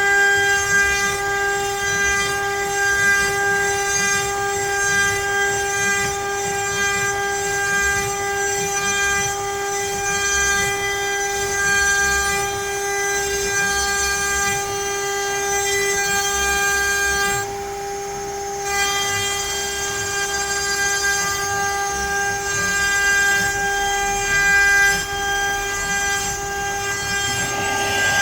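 CNC router spindle running with a steady whine while the bit mills letters into pine wood, with rough cutting noise under the whine. The upper part of the sound thins out for about a second about two-thirds of the way through, and the cutting sound changes just before the end.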